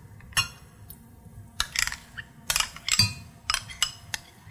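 A spoon scooping sour cream from a tub into a glass measuring bowl, with several short clinks and taps of the spoon against the containers.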